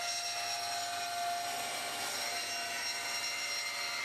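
Table saw running and ripping a rough maple board lengthwise: a steady whine of the spinning blade over the noise of the cut.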